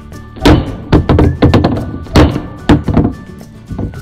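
Small plastic toy figures dropping and bouncing onto a wooden surface: a run of thunks and taps, the loudest about half a second and about two seconds in. Background music plays underneath.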